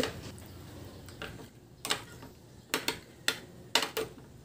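Metal spoon clinking against a glass bowl while stirring a thick mayonnaise sauce: about six sharp, irregular clinks.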